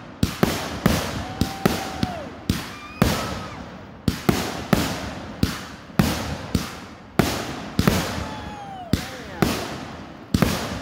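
Consumer fireworks firing in quick succession: sharp bangs, about two to three a second, as shots launch and burst overhead, with a few short whistling tones among them.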